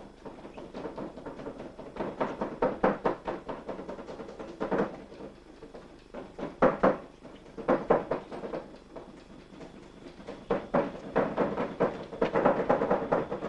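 Rapid knocking and rattling in bursts of several strikes, with short pauses between the bursts.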